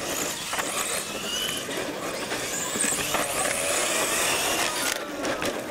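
Two radio-controlled monster trucks racing across concrete: a steady rush of motor, gear and tyre noise with a high whine that rises and falls.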